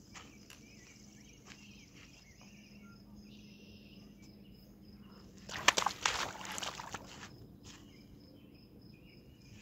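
Faint insects chirping, then about halfway through a loud burst of splashing and thrashing as a hooked carp is grabbed by hand from the shallow water at the bank.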